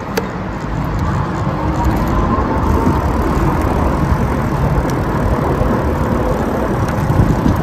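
Wind rumbling on the microphone of a camera riding on a moving bicycle, mixed with tyre and road noise, with a couple of light clicks.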